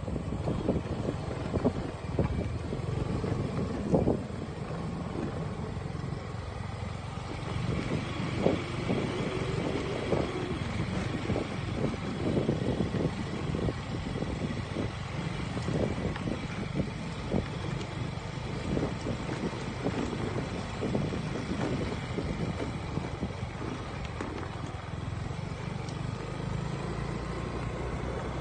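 Wind buffeting the microphone from a moving vehicle, in uneven gusts over a steady low rumble of the ride.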